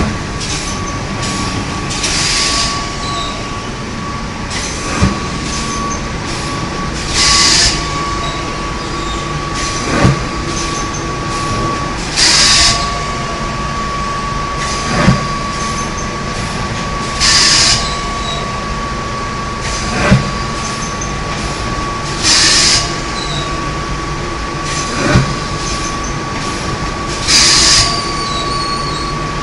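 Paper-pulp egg tray moulding machine running through its regular cycle: a short hissing burst about every five seconds, alternating with a sharp knock about every five seconds, over a steady machine hum and a constant high whine.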